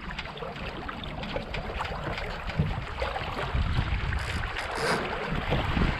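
Water splashing and rushing along the hulls of a Strike 20 trimaran under sail, with wind buffeting the microphone. The low wind rumble grows stronger about three and a half seconds in.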